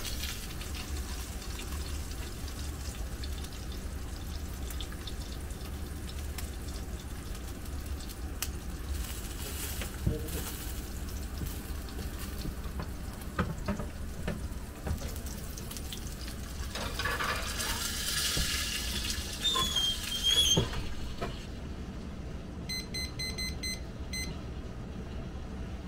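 Steady low hum of a restaurant kitchen with a few knocks of plates and metal, then a digital kitchen timer beeping quickly several times as its buttons are pressed, near the end.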